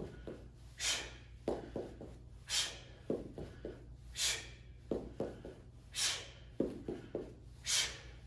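A man's sharp exhalations, one with each kick, coming about every second and a half to two seconds, with soft footfalls and shuffles on the mat in between.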